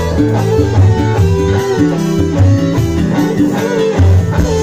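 Live dangdut band playing an instrumental passage led by guitar over a steady beat.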